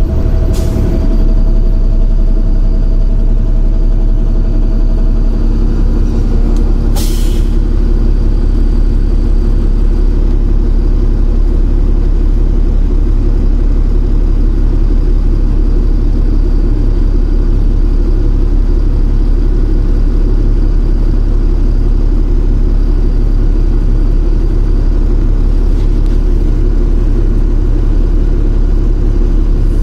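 Cummins ISL straight-six diesel engine of a 2006 Orion VII bus running steadily and loudly, with two short hisses, one about half a second in and another about seven seconds in.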